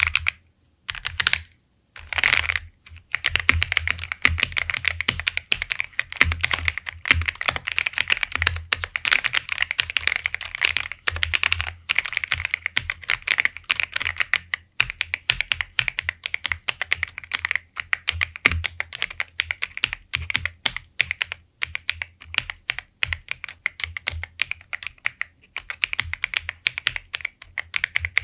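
Typing on an Ajazz AK650 65% aluminium mechanical keyboard. A few separate key presses come first, then fast, continuous typing from about three seconds in, with brief pauses.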